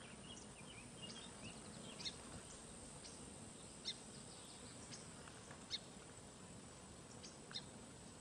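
Faint outdoor stream-side sound: a steady hiss of shallow flowing water with short bird chirps scattered every second or two.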